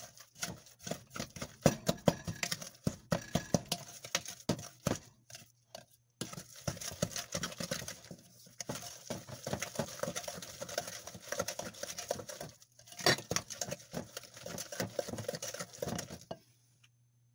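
A spoon beating butter, sugar and egg by hand in a glass mixing bowl: rapid, irregular taps and scrapes of the spoon against the glass, stopping near the end.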